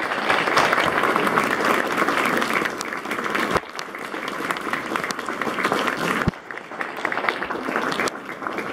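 Audience applauding: dense clapping from a room full of people, which eases off in two steps, once partway through and again later.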